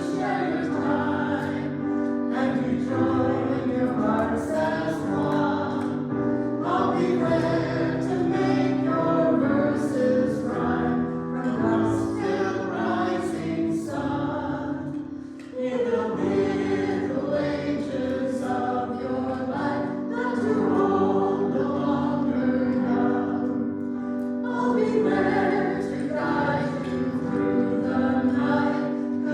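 Church congregation singing a hymn together in held, slow notes, with a brief break about halfway before the next line or verse begins.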